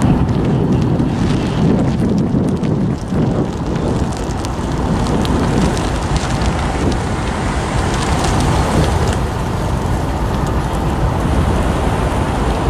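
Diesel locomotive engine running steadily, with wind buffeting the microphone and scattered crackling.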